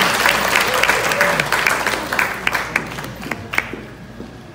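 Audience applauding. The clapping thins out after about two seconds into a few last scattered claps, then dies away near the end.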